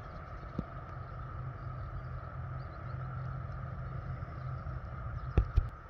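Quiet outdoor meadow ambience: a steady low hum and a fainter steady higher drone, with scattered faint high chirps. Two sharp clicks come near the end.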